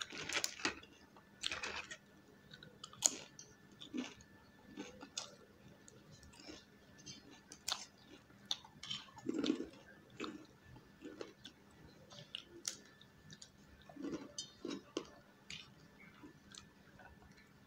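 Close-up eating sounds: crisp fried papad being snapped and crunched, loudest in the first two seconds, then scattered crunches, small clicks and chewing of noodles.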